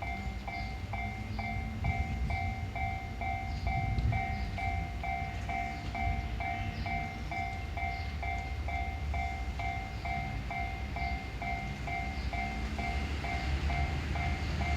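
Japanese railroad crossing alarm ringing its electronic 'kan-kan' bell, a two-tone ding repeating about two and a half times a second without a break, the warning that a train is approaching. A low rumble runs underneath.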